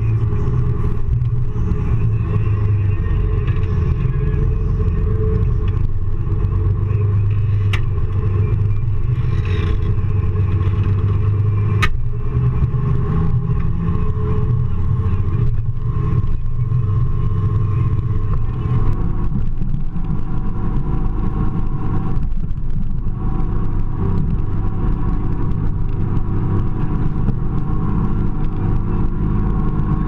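Ford TW-25 tractor's turbocharged six-cylinder diesel engine running steadily under ploughing load, a loud low rumble. Two sharp clicks come at about a third of the way in, and the engine note shifts about two-thirds of the way through.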